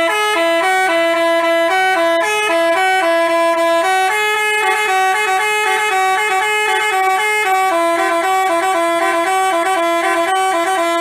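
Telolet multi-tone bus horn of the Basuri kind playing a fast tune of short notes that step up and down without a break. It stops abruptly near the end.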